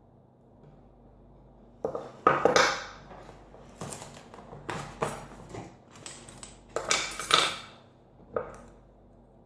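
Small metal parts of a Sargent mortise lock cylinder clinking and scraping as its back is worked on by hand: an irregular run of sharp clinks over several seconds, loudest at the start and near the end.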